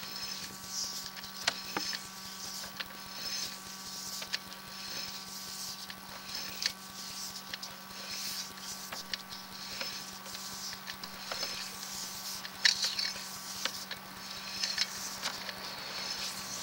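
Sewer inspection camera being pushed along a drain pipe: irregular scraping and clicking from the camera head and push rod, over a steady electrical hum from the camera system. A sharper click stands out near the end.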